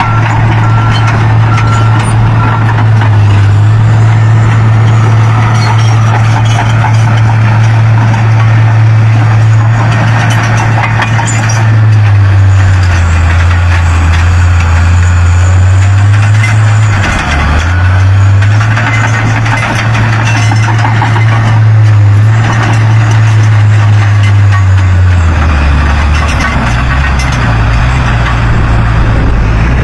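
Large excavator's diesel engine running steadily with a loud low hum, its pitch dropping lower twice, about twelve seconds in and again near the end.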